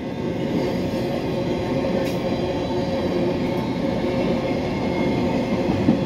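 Norfolk Southern rail train's cars rolling past close by, a steady rumble and rattle of wheels on the track with faint steady squealing tones over it.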